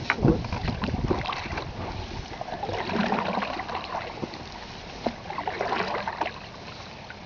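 Water lapping and splashing against the hull of an open canoe moving on a river, with small scattered drips and knocks. Wind buffets the microphone in the first second or so.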